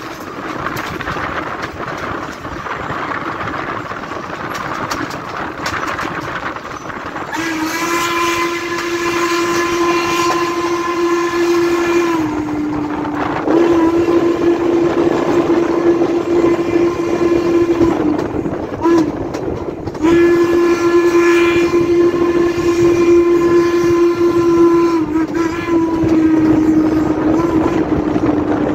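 Chesapeake & Ohio #1309, a 2-6-6-2 Mallet steam locomotive, first heard running with its train, then sounding its steam whistle in three long blasts with a brief toot between the second and third. Each long blast is one steady note that sags a little in pitch as it ends.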